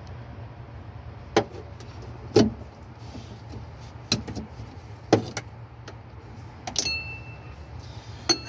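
Hands and a flathead screwdriver working the plastic connector clips and hoses on top of a car's fuel pump, making about half a dozen sharp clicks and taps. One, near the end, is a metal clink that rings briefly. A steady low hum runs underneath.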